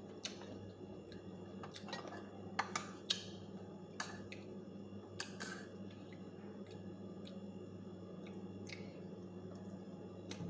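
A person eating sour mango slices: chewing, with about nine light, sharp clicks of a spoon against a bowl and plate, over a steady low hum.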